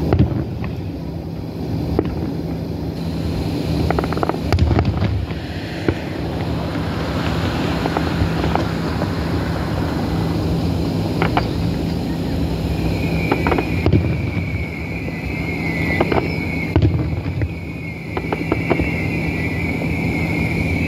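Aerial fireworks going off: a series of bangs at irregular intervals, over steady wind rumble on the microphone. From a little past halfway until near the end, a high hiss runs under the bangs.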